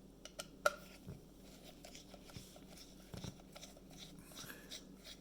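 Scattered small clicks and light knocks of hands handling a small Torx screwdriver and the plastic smart speaker, the sharpest click about two-thirds of a second in.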